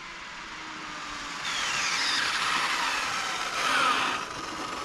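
Arrma Typhon GT RC car's brushless electric motor whining at speed with tyre hiss on asphalt as the car runs in. The whine falls in pitch as it slows and is loudest nearly four seconds in. By the owner's ear the motor is not reaching its peak potential.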